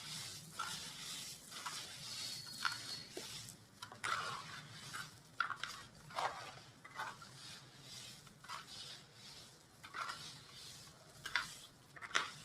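Gritty chunks of white cement crumbling, an irregular run of small, sharp crunches and crackles over a dry gritty rustle.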